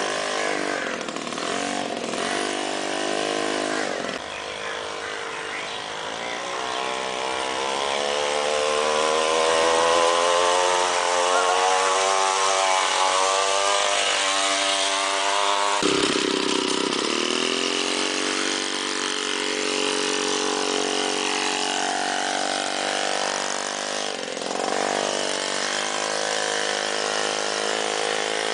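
Monowheel's small engine running. Its pitch climbs steadily from about six seconds in to a peak around fifteen seconds, then drops abruptly near sixteen seconds and runs on at a steadier, lower speed.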